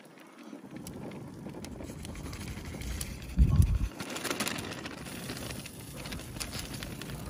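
Wind buffeting the microphone in low rumbling gusts, the strongest about three and a half seconds in, over faint crackling from marinated vegetables cooking on a hot grill grate.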